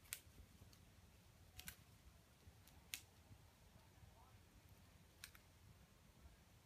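Near silence broken by four faint, sharp clicks at irregular intervals.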